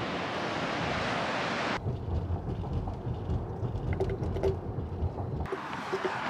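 Wind blowing on the microphone, cut about two seconds in to the low tyre and road rumble inside the cabin of a Tesla Model Y, an electric car, as it drives. A second cut near the end brings back the wind.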